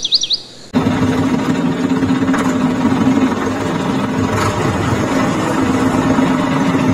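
Engine idling steadily, a loud low hum that cuts in suddenly about three-quarters of a second in. Before it, a quick run of rapid falling chirps ends about half a second in.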